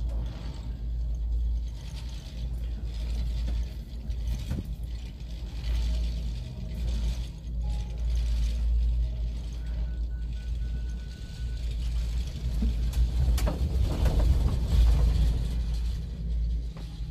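Cable car cabin riding up its cable: a steady low rumble with mechanical rattling and clicks, a little louder near the end.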